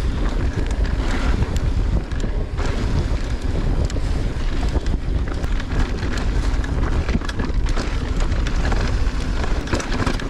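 Wind buffeting the camera microphone and knobby tyres rolling over a dirt and rock trail as a mountain bike descends at speed, with frequent clicks and rattles from the bike over rough ground.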